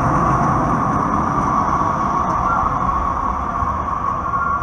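Breda light rail vehicle rolling past on the rails: a loud steady rumble with a steady high-pitched tone over it, easing off slightly near the end.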